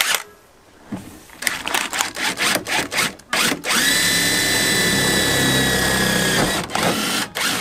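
Cordless battery drill-driver spinning a bit into an MDF speaker baffle ring on a car door panel. It runs in several short trigger bursts, then holds a steady whining run of about three seconds that rises as it spins up and drops as it stops, then gives a few more short bursts.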